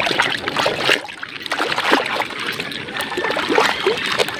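Soapy water splashing and sloshing irregularly as a hand scrubs a plastic toy gun under the surface of a tub of water.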